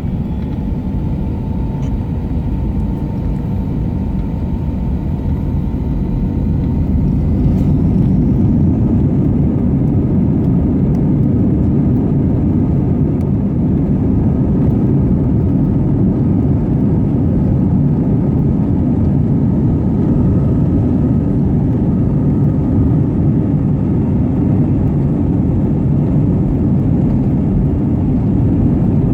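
Airbus A321 jet engines spooling up to takeoff thrust on the takeoff roll, heard from inside the cabin: a loud, low rushing rumble that builds over about eight seconds and then holds steady.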